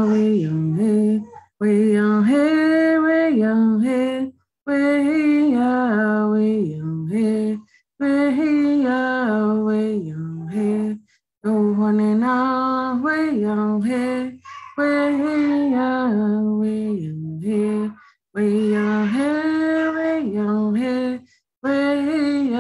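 A woman singing a Tunica-Biloxi round dance song solo and unaccompanied, in phrases of two to three seconds with short silent breaks between them.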